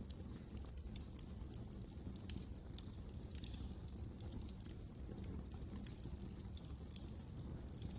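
Wood fire in a fireplace crackling, with dense irregular snaps and a few louder pops over a low steady rumble of the flames.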